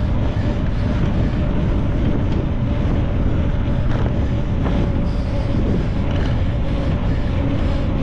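Wind rushing hard over the microphone of a motorcycle at road speed, with the engine's steady drone underneath.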